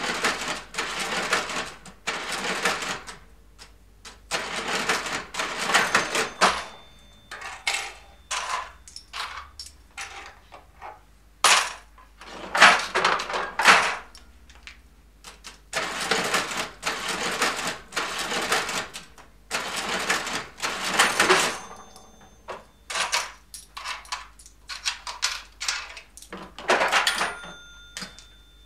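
A 1969 keyboard-operated supermarket cash register being rung up again and again: keys struck, the mechanism clattering as it prints a ticket, the cash drawer opening with a ring of its bell, change handled and the drawer shut. Bursts of mechanical clatter come in clusters with short pauses between them, and a bell tone rings on after some of them.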